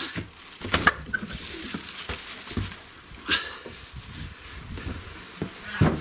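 Footsteps and rustling on a straw-littered floor and ground, with a few sharp knocks, about a second in, three seconds in and near the end.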